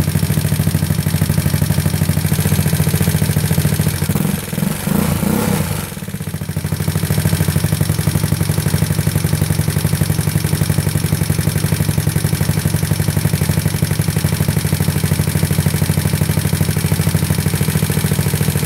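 Big-bore GY6 scooter's four-stroke single-cylinder engine idling cold on its auto choke. About four seconds in the throttle is blipped before the choke has opened, and the engine stumbles briefly, then settles back to a steady idle.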